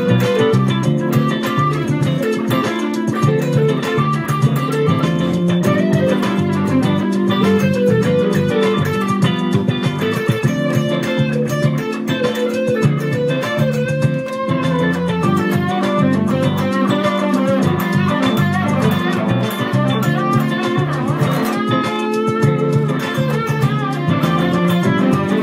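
Telecaster-style electric guitar playing an improvised lead in D Dorian, quick melodic runs over a steady backing with a bass line. There are several bent notes about 22 seconds in.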